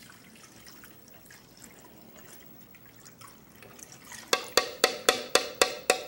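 Liquid trickling faintly as a white wine marinade is poured from a glass measuring cup into an aluminium pot. Then, past the middle, about eight quick, sharp, ringing clinks, some four a second, as the metal spoon taps the glass cup.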